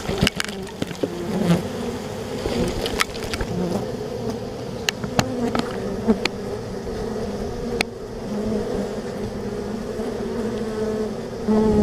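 Honey bees buzzing around an open nuc box, a wavering hum from many bees with single bees passing close and fading, plus a few sharp clicks. Near the end one bee buzzes loud and close.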